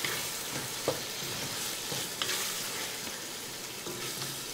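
Ground meat with chopped onion, tomato and garlic sizzling as it fries in a pot, stirred with a wooden spoon that knocks against the pot a couple of times.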